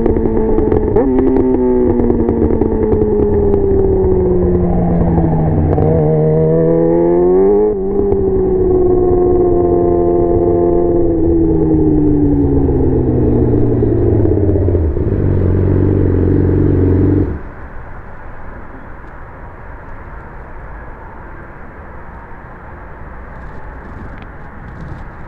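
2019 Yamaha R6's inline-four through a LeoVince aftermarket exhaust: revs falling, then rising quickly to a gear change about a third of the way in, holding, and falling again to a low, steady note. The engine sound cuts off abruptly about two-thirds of the way through, leaving a steady hiss.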